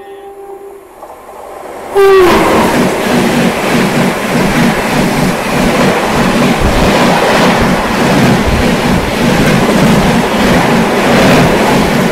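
The New Delhi–Rani Kamlapati Shatabdi Express passes at speed on the adjacent track. Its horn sounds as it approaches, then falls in pitch as the locomotive goes by about two seconds in. A loud, steady rush of passing coaches with rhythmic wheel clatter follows.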